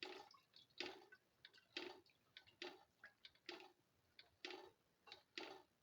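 Spoon stirring potato soup in a pan: faint, short scrapes repeating evenly a little under once a second.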